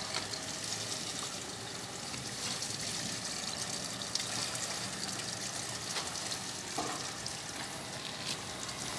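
Steady, even hiss of outdoor background noise, with a few faint clicks.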